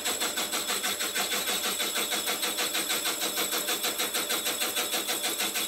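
Slitting saw on a mini milling machine cutting into a cast iron block, a steady machining whir that pulses evenly about seven times a second.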